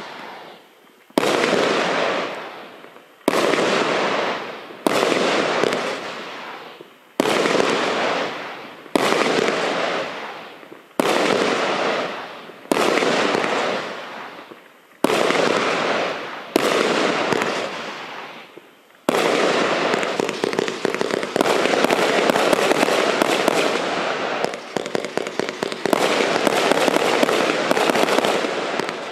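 A 50-shot firework barrage cake (Cube Fireworks 702 Crusader) firing: sharp bursts about every two seconds, each fading away, then from about two-thirds of the way through the shots come in a fast, nearly continuous string.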